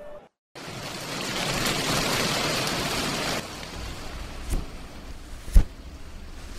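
A steady rushing noise, loud for about three seconds and then fainter, with two short thumps near the end.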